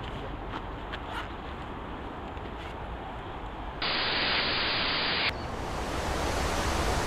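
A burst of video static hiss, about a second and a half long, that starts and stops abruptly about four seconds in: a tape-glitch transition effect. It is the loudest sound here. Faint outdoor ambience with a few light ticks comes before it, and a steady outdoor hiss follows.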